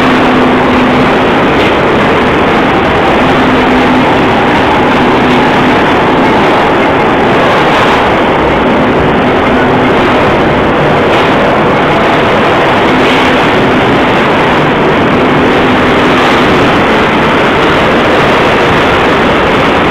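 Steel section rolling mill at work: a loud, steady din of running roll stands and roller tables, with a low hum that comes and goes every few seconds.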